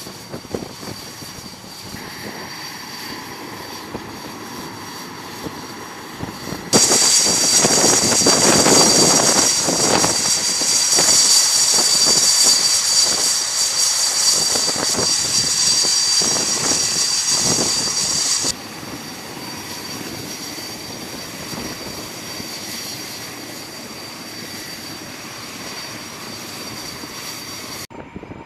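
T-45 Goshawk jet trainer's turbofan engine running at idle with a steady high-pitched turbine whine over a rushing roar. It is much louder for about twelve seconds in the middle, the level jumping up and dropping back abruptly.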